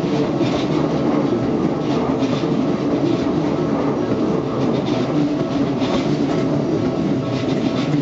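Keikyu New 1000 series electric train running close past, a steady rumble of wheels on rail broken by repeated clicks as the wheels cross rail joints.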